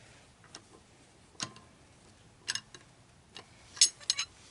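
Scattered sharp metallic clicks and clinks at irregular intervals, the loudest near the end: lug nuts and hand tools being handled while a car wheel's lug nuts are snugged up by hand.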